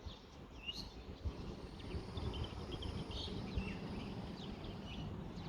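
Small birds chirping in short, scattered calls over a low rumble of wind on the microphone.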